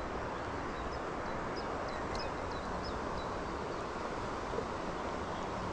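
Fast, shallow river rushing steadily over stones, with a few faint high chirps about two seconds in.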